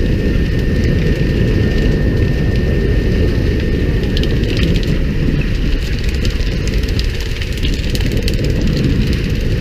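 Steady low drone of a fishing boat's engine, mixed with the hiss and splash of water sprayed out over the side along the hull.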